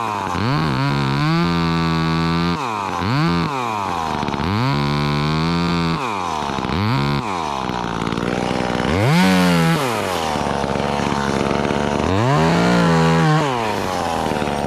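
Chainsaw engine revved up and down again and again, its pitch rising and falling with each squeeze of the throttle, then held at high revs for a second or so twice near the end, while cutting a section of tree trunk.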